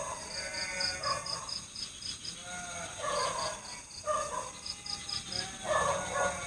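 Night forest chorus: frogs calling with irregular, bleating croaks, over crickets chirping in quick pulses about five a second and a steady high insect drone.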